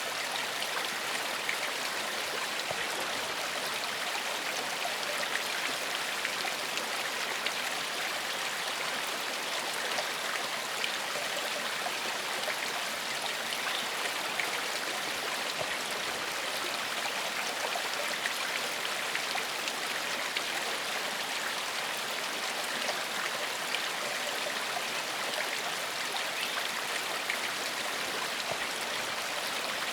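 Forest stream flowing over rocks, a steady babbling and splashing of water.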